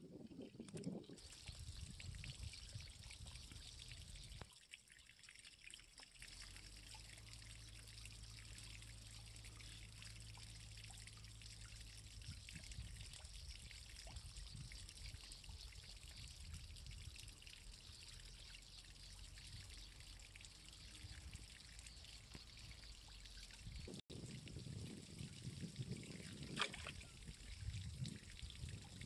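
Faint trickling and lapping of shallow water around a man wading, with a few small splashes near the end. A steady low hum lies underneath for much of the middle.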